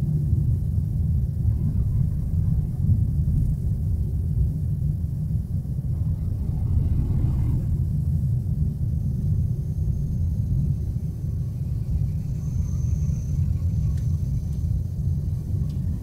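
Steady low rumble of a car driving along a city avenue in traffic: engine and tyre noise on the road.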